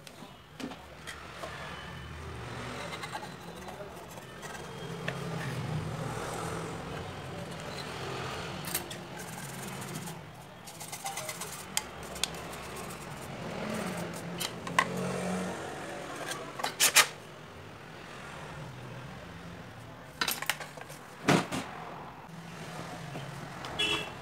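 Handling sounds from a phone repair: sharp clicks and clinks of a Samsung J7 frame and small tools against the workbench, with a toothbrush scrubbing the frame midway. Behind them runs steady background noise with faint voices.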